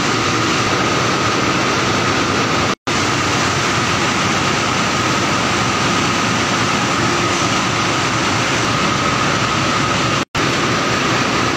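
Finisher draw frame running: a steady, loud mechanical noise with a constant whine, cut off for an instant twice.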